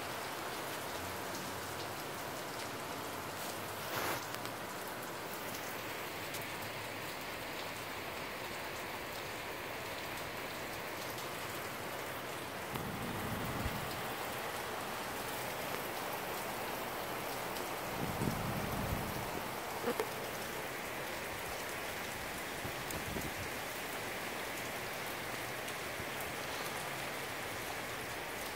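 Moderate rain falling steadily, a constant even hiss of rain on roofs and surfaces. A couple of brief low rumbles come through partway in.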